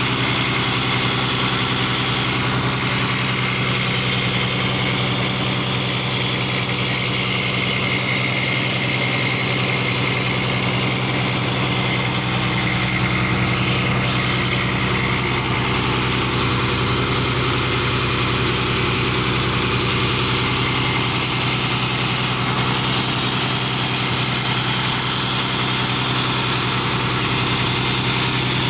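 Fishing boat's engine running steadily at an unchanging speed, one even drone throughout.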